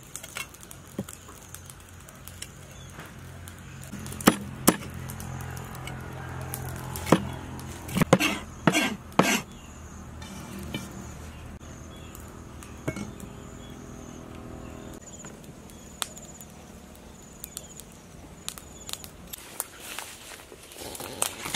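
Scattered sharp knocks and clicks, several in quick succession around the middle, over a low steady hum and faint high chirping.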